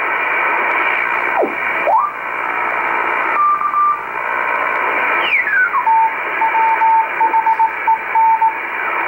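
Icom communications receiver in upper sideband, tuned slowly across the 30 meter amateur band: a steady hiss of band noise with whistling carrier tones that glide in pitch as the dial passes them. About six seconds in, a Morse code signal is heard keyed on and off at one pitch.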